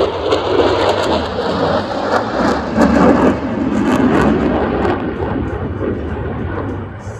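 Loud jet noise from an F-22 Raptor's twin Pratt & Whitney F119 turbofans as the fighter flies past, fading over the last couple of seconds as it pulls away.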